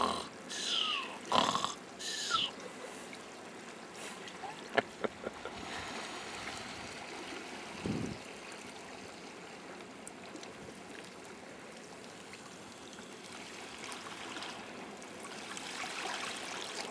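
Grey seal snoring in its sleep: a few loud breaths in the first two seconds and one short, lower one about eight seconds in, over water trickling and lapping against the rock.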